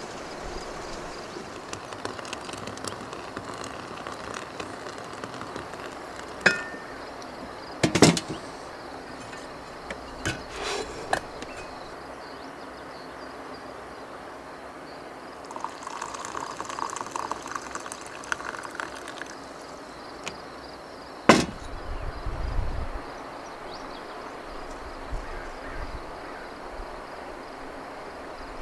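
Camp cookware and gear being handled at the back of a van: several sharp metal clinks and knocks, the two loudest about eight seconds in and again about thirteen seconds later, over a steady outdoor hiss.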